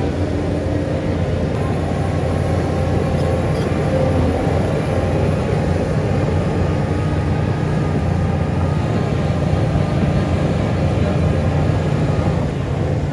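Heavy diesel engine of earthmoving machinery running steadily with a deep drone.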